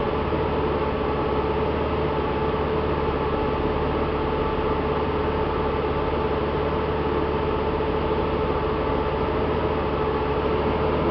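Honda GL1800 Gold Wing's flat-six engine running steadily at an unchanging speed, with no revving.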